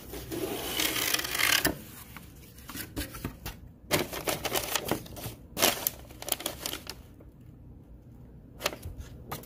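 Cardboard shipping box being opened by hand: the tear strip rips along the box, loudest in the first two seconds, then kraft packing paper and a paper card rustle and crinkle, with scattered sharp clicks.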